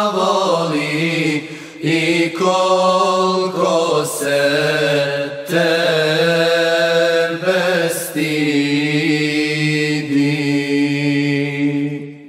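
A choir singing an a cappella Bosnian ilahija without words or instruments. It holds long chords, with short breaks between phrases, and the last chord fades out near the end.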